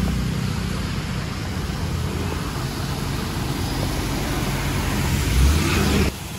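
Bus engine running under a steady hiss of rain and road noise. The low engine note swells briefly, then the sound drops off abruptly near the end.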